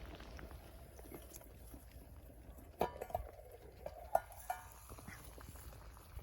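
Metal cookware clinking three times with a short ring, over a background of faint crackles and a low rumble.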